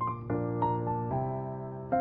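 Background music: a slow piano melody of single notes, each struck and left to ring.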